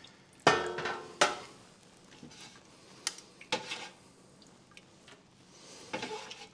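A metal utensil clanks against a stockpot as chunks of braised beef are lifted out of the consommé. The loudest clank, with a ringing after it, comes about half a second in and another follows just after a second. Lighter knocks come around three seconds in and again near the end.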